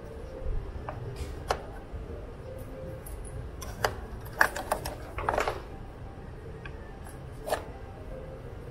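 Scattered light clicks and knocks of a hydraulic brake caliper and its pads being handled, about eight in all, with a quick cluster a little past the middle.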